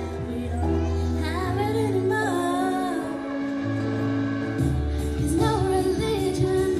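A girl's voice singing a slow pop ballad into a microphone over backing music with long held bass notes; the voice comes in about a second in.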